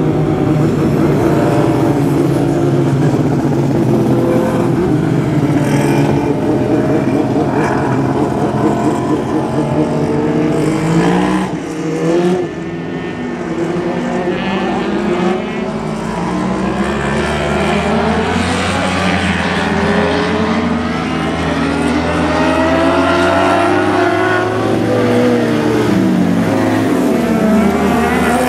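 A pack of compact speedcars racing, several engines at once, their notes rising and falling as the cars come past and lift off and accelerate through the turns. There is a brief dip in the racket about twelve seconds in.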